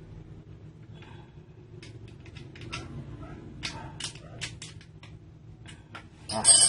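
Scattered small metallic clicks and taps of the two nuts on a chainsaw attachment for an angle grinder being tightened down, with one loud, brief metal clatter near the end.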